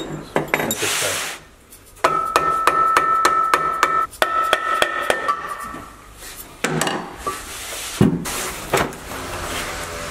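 Quick hammer taps on metal, about four a second for some three seconds with a short break partway, each leaving a ringing metallic tone; then a few single knocks of metal parts set down.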